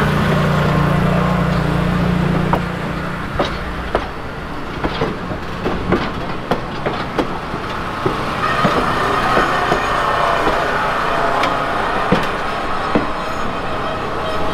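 Passenger coaches of a heritage train rolling slowly past on jointed track, the wheels knocking and clicking irregularly. A low hum stops about two and a half seconds in, and from about eight seconds in a high squeal from the running gear sets in.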